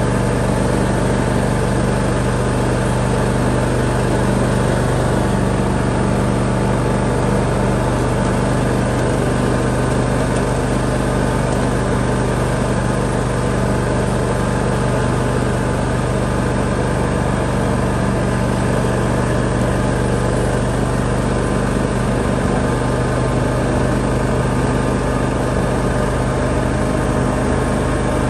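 John Deere X320 riding lawn tractor's engine running steadily at a constant speed, heard from the driver's seat.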